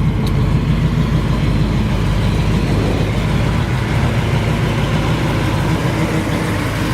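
Steady idle of a 454 big-block V8 breathing through dual exhaust with Cherry Bomb mufflers, a low, even rumble.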